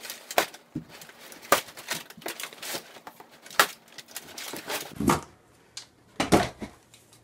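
Cardboard product box being opened by hand: irregular sharp clicks, scrapes and tearing as the packing tape is slit and the lid is worked off, with two heavier cardboard knocks about five and six seconds in.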